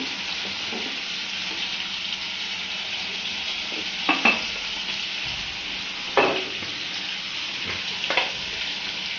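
Onions, tomatoes and green chillies sizzling in oil in a steel kadai, a steady hiss, with a few short clinks of utensils about four, six and eight seconds in.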